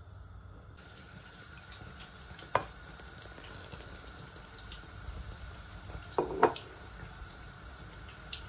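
Liquid being poured into a pot of hot milk to curdle it for paneer, with a sharp clink against the aluminium pot about two and a half seconds in and two louder clinks close together about six seconds in.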